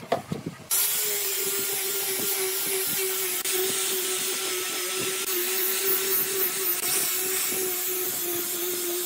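Angle grinder fitted with a sanding disc on a rubber backing pad, running at a steady pitch and sanding a wooden tabletop: a steady motor whine over the hiss of the abrasive on the wood. A few short knocks come just before the motor sound starts, under a second in.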